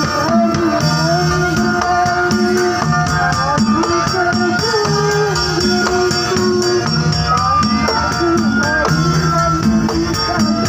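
Live Javanese street-procession music: an amplified electric keyboard plays a gliding melody over a repeating low note figure, while gongs slung from bamboo poles, drums and jingling tambourine-like percussion keep a steady beat.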